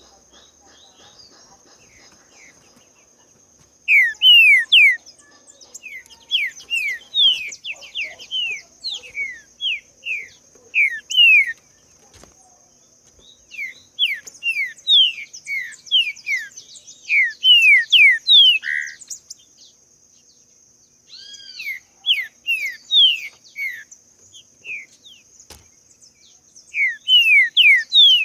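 Green-winged saltator (trinca-ferro) singing: phrases of quick, downward-sliding whistles starting about four seconds in, broken by short pauses. A steady thin high tone runs underneath.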